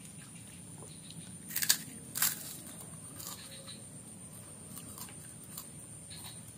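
A child biting and chewing kerupuk crackers: two loud crunches about two seconds in, then fainter crunches as he keeps chewing.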